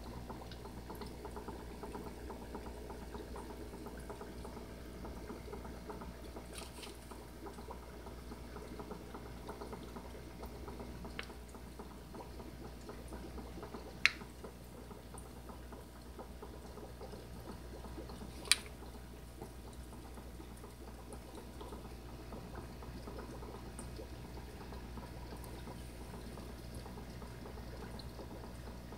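Aquarium water bubbling and trickling over a steady low hum, with two sharp clicks about halfway through and a few seconds later.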